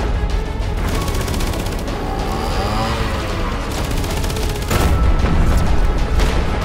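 Two bursts of rapid gunfire, like machine-gun fire, over a deep rumble, with music underneath. A single sharp bang comes a little before five seconds in.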